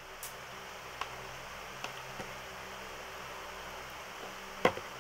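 Small clicks and taps of someone eating from a plate by hand, over a steady fan-like hiss; one sharper click near the end.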